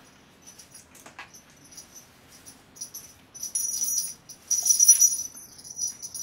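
Small metal bells hanging from a tablet-woven belt jingling as the belt is handled and tied at the waist, with a click about a second in and two louder bursts of jingling in the second half.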